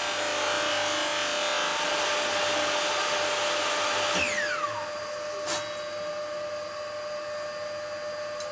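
Table saw running and cutting a Swiss stone pine board. About four seconds in the cut ends with a brief falling whine and the sound drops to the blade spinning free. A short knock follows about a second later.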